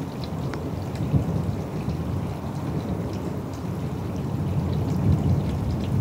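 Thunderstorm: a low, continuous rumble of thunder that swells about five seconds in, over falling rain with scattered raindrop ticks.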